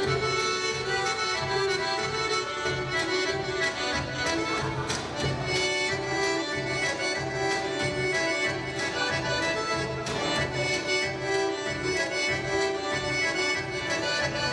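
Serbian folk dance music led by an accordion, playing steadily with a regular beat.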